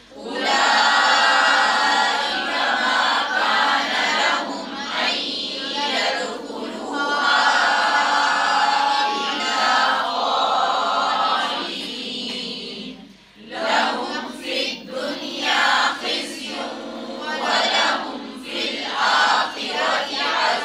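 A group of voices reciting Quranic Arabic verses aloud in unison, a chanted group recitation with a short break about thirteen seconds in.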